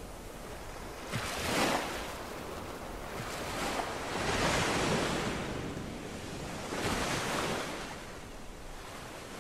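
Sea waves breaking on a shore, three surges of surf washing in one after another.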